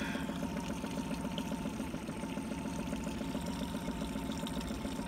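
Boat motor idling: a steady low hum with a fast, even flutter.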